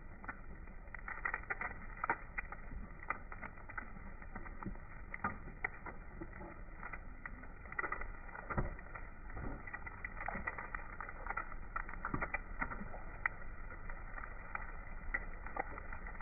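Egg frying in hot oil in a small frying pan: steady sizzling with many irregular crackles and pops, and a metal spatula scraping against the pan as it is worked under the egg.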